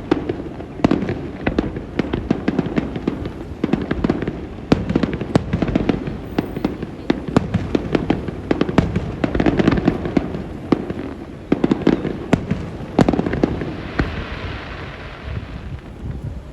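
Fireworks display: a dense, continuous barrage of sharp bangs and pops over deep rolling booms, with a stretch of fizzing crackle near the end.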